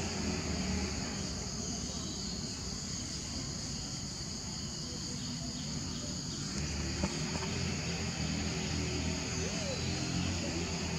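Steady high-pitched insect chorus droning in the background, over a low rumble.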